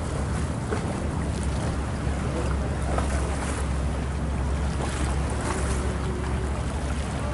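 Boat engine running with a steady low rumble, water rushing along the hull and wind buffeting the microphone.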